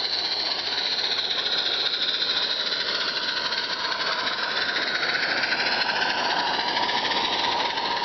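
A 16mm-scale live-steam locomotive and its long train of hopper wagons running past on the track: a steady hiss and rolling noise with no breaks or clear beat.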